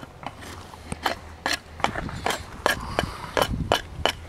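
Knife cutting shavings from a split stick of firewood braced on a log: a run of short, sharp scraping cuts, about three a second.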